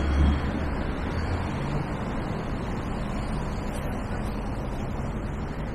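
Road traffic on a city street: a steady rumble of passing cars and vans, deeper and stronger for the first second or so.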